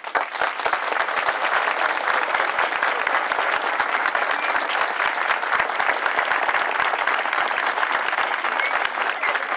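A large crowd applauding, the clapping breaking out all at once and then going on steadily.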